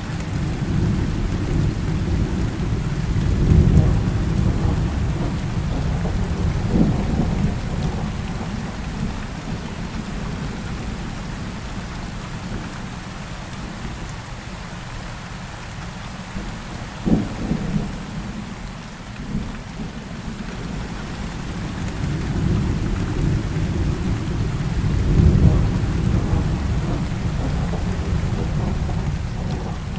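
Heavy rain falling steadily with rolling thunder. The low rumble swells a few seconds in and again in the last third, with a couple of short, sharper claps in between.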